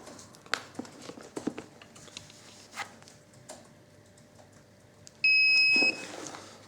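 Faint clicks and rustles from small parts being handled, then one steady electronic beep lasting under a second, about five seconds in.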